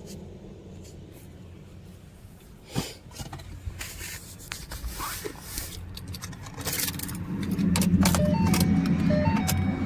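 Clicks and rattles of a car door and keys, then about seven seconds in a 2011 Ford Mustang's 3.7-litre V6 starts and runs at a steady idle, with short stepped dashboard chime tones near the end.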